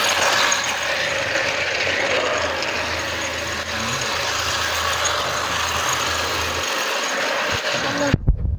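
Toy Shinkansen bullet train running around its plastic track: a steady mechanical whirr. Near the end, a few dull thumps.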